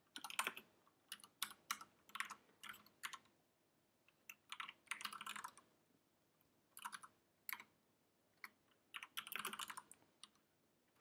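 Computer keyboard typing in irregular runs of keystrokes, with short pauses between the runs.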